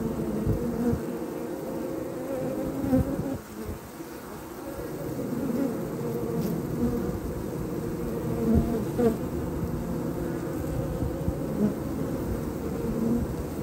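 Honey bees buzzing at a busy hive entrance: a dense, steady hum of many wingbeats, with single bees' buzz briefly rising and falling as they fly close by.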